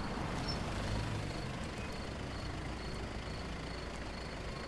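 Steady low rumble with a cricket chirping faintly and evenly, about twice a second.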